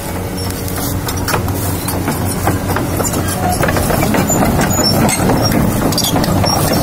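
Tracked excavator crawling along: its diesel engine running with a steady low hum, over a stream of metallic clanks and clicks from the steel track links, all growing louder as the tracks come close.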